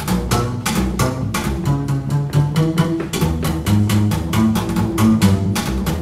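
Recorded music played back from cassette on a Denon DR-M2 three-head tape deck: a quick, steady beat of sharp hits over low bass notes.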